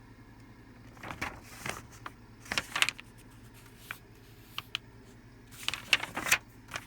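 Paper pages of a manual being turned and handled: several short rustling swishes over a steady low hum.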